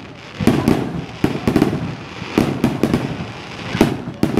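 Fireworks display with aerial shells bursting: about a dozen sharp bangs in quick, uneven succession, several coming in tight clusters.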